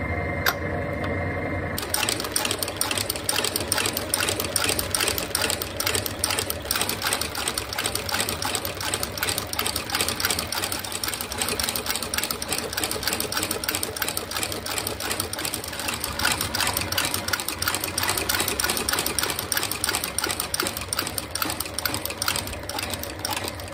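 Leather sole stitching machine running, with a fast, steady clatter of stitches that starts about two seconds in, as it sews through a double-thickness leather sole on a parade boot.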